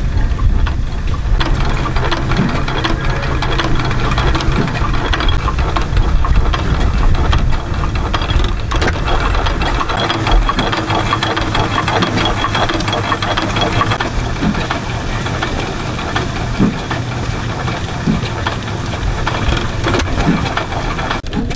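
Antique single-cylinder hit-and-miss gas engine running, its heavy flywheels turning, with repeated sharp knocks from its firing strokes and ignitor and valve gear over a steady low rumble.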